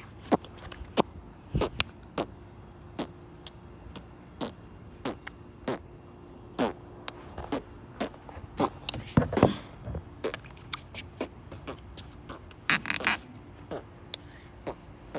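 Irregular clicks, knocks and scrapes of a handheld phone being handled and then set down on playground equipment, with a few louder rubbing bursts about nine seconds in and near the end.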